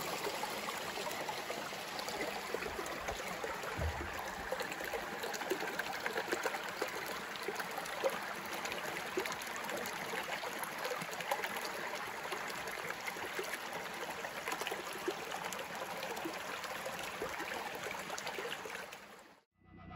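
Small rocky woodland brook, full after a day and a half of rain, running and trickling over stones in a steady rush. It fades out just before the end.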